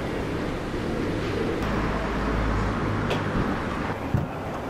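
Steady low rumble of vehicle or traffic noise that swells for about a second in the middle, with a short knock near the end.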